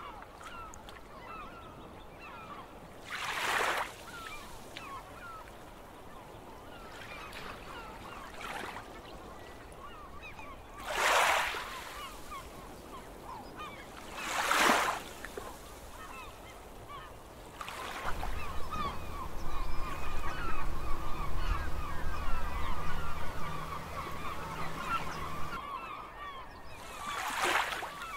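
Sea waves washing in at the shore, each one surging up and falling away, four times. Under them a flock of birds calls constantly in short, quick cries. From about two-thirds of the way in, a low hum comes in for several seconds, the loudest part, then stops.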